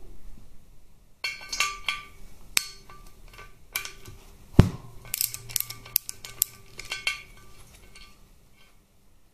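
Metal tools clinking and tapping against a Harley Twin Cam engine case as a spanner is fitted to an oil pipe fitting and the fitting is unscrewed, short metallic rings after each clink, with one sharp knock about halfway through.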